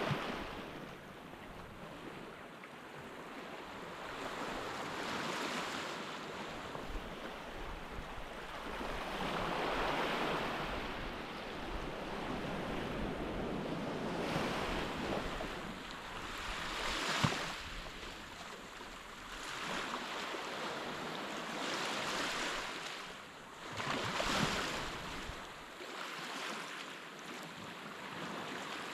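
Small waves washing up on a sandy beach in irregular surges a few seconds apart, each a rush of noise that swells and fades. There is one sharp click about two-thirds of the way through.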